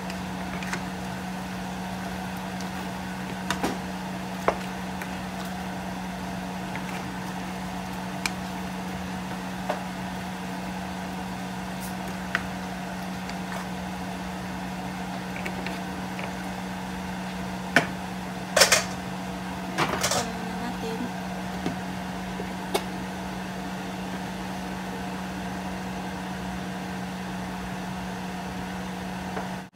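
A steady low mechanical hum, with scattered knocks and clatters of a wooden spatula stirring chicken pieces in a metal pan and a glass pot lid being handled. The loudest clatters come about two-thirds of the way through.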